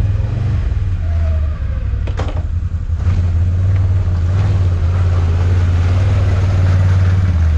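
Can-Am ATV engine running at a low, steady pitch, getting louder about three seconds in as the quad comes close; one short sharp knock a little before that.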